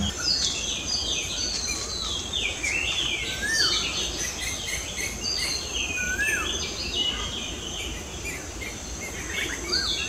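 Many small birds calling in the forest canopy, a busy chorus of short, mostly falling chirps and whistles with now and then a lower rising note, over a steady high insect buzz.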